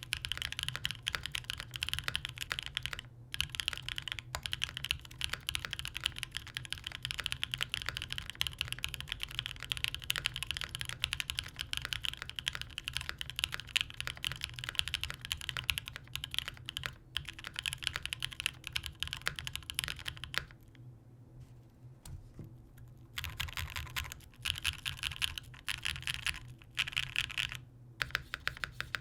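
Custom Matrix Corsa mechanical keyboard with JWK Bluey switches lubed with 205g0, a full aluminium plate, no foam and GMK WOB keycaps. It is typed on steadily for about twenty seconds. After a short pause it gives bursts of rapid repeated keypresses.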